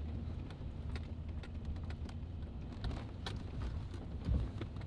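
Low engine and road rumble inside the cab of a slowly moving vehicle, with scattered light clicks and rattles.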